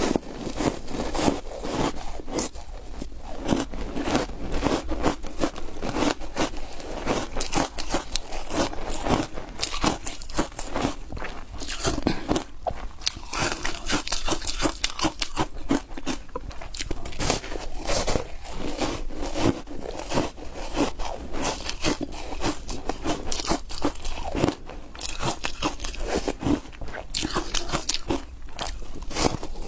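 Close-up biting and chewing of crunchy foam ice dusted with matcha powder: a dense, continuous run of crackling crunches with no pauses.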